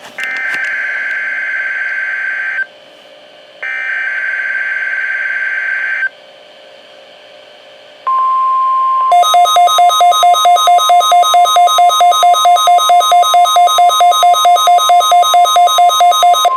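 NOAA Weather Radio alert signals on a Midland WR120 receiver. First come two buzzing bursts of SAME digital header data, each about two and a half seconds long, with a short gap between them. About eight seconds in, the steady 1050 Hz warning alarm tone starts, and a second later rapid pulsing alarm beeps, about four a second, sound over it.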